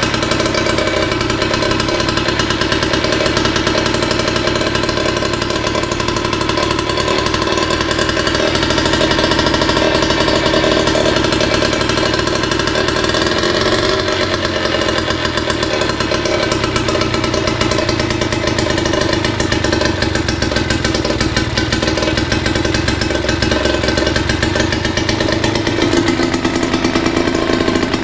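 1963 British Seagull two-stroke outboard motor running steadily out of the water, with no cooling water, on its first start after restoration with a new ignition coil.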